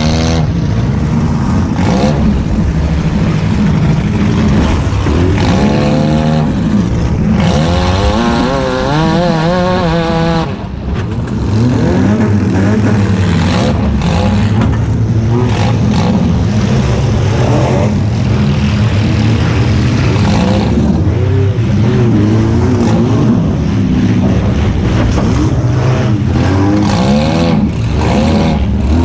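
Compact demolition-derby cars' engines running and revving hard, several at once, the pitch swinging up and down, with sharp crash impacts now and then.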